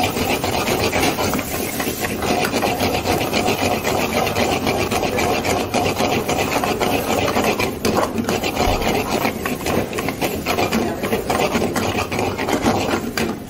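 Steel ladle scraping rapidly and continuously against a wide iron frying pan as sliced onions and green chillies are stir-fried, a harsh rasping scrape.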